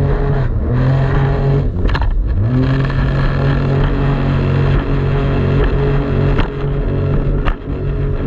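Jet ski engine running, its pitch dropping briefly as the throttle is eased about half a second and two seconds in, then climbing back to a steady note.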